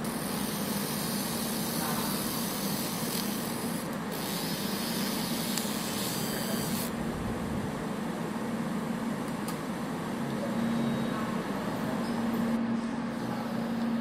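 Laser marking machine running with a steady hum and hiss as it ablates the coating off a micro SD card, exposing the copper circuitry. A brighter hiss sits on top for the first several seconds.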